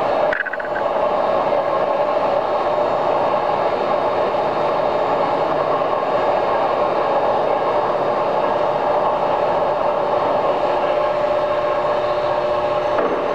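Steady running noise of a large Polish-built engine lathe's drive, a constant hum with a steady whine.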